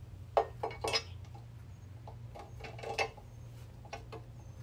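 Steel disc brake mounting bracket clinking and knocking against the rear axle housing flange as it is test-fitted by hand: several sharp metal clicks, the loudest about half a second in. A steady low hum runs underneath.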